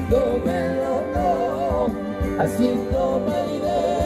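Live pop band playing through a concert PA, with a male lead singer singing a melody with vibrato over guitars, keyboards and drums.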